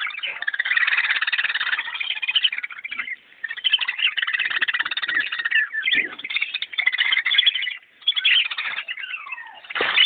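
A flock of cockatiels chirping and chattering in a cage, many calls overlapping into a dense racket. It breaks off briefly twice, and a few falling whistled calls come near the end.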